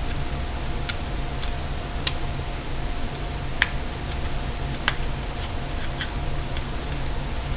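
Irregular light clicks and taps, about eight in all and the sharpest about three and a half seconds in, as computer parts are handled during a PC build, over a steady low hum.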